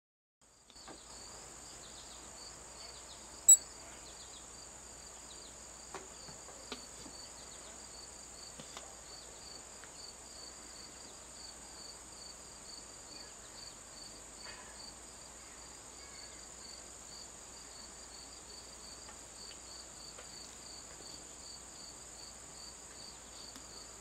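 Late-summer insects chirring: a continuous high trill with a pulsing chirp a few times a second beneath it, typical of crickets and katydids. A single sharp click sounds about three and a half seconds in.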